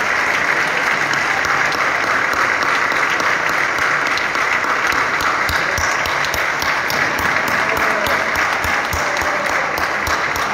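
A large audience applauding steadily. A regular beat of low thumps, about three a second, joins the clapping about halfway through.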